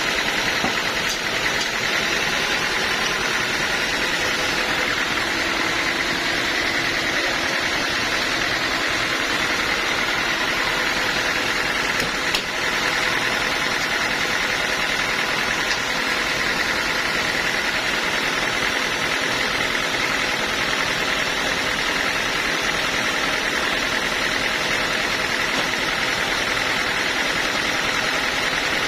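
Engine-driven band sawmill running steadily at a constant pitch, with a single brief click about twelve seconds in.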